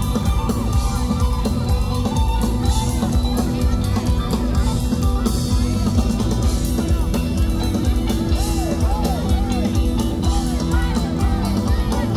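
Live band playing loud rock music through a PA: a steady drum-kit beat with electric guitar and singing.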